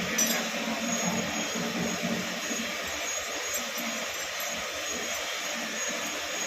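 Machinery running steadily: a continuous rushing noise with a low hum beneath it and a few faint clicks about a quarter-second in.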